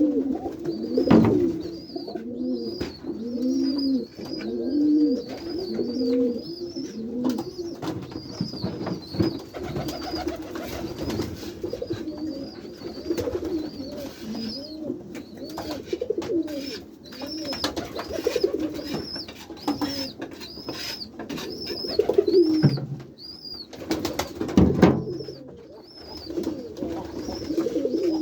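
A flock of domestic white pigeons cooing continuously, many overlapping low rolling coos. A thin high chirp repeats through most of it, and there are a few sharp loud noises about a second in and about 25 seconds in.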